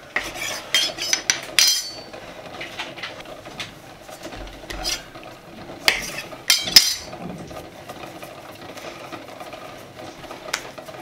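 Chef's knife cutting through a log of dough and knocking against the countertop: a quick run of sharp knocks in the first two seconds, a few more about six seconds in, and one more near the end.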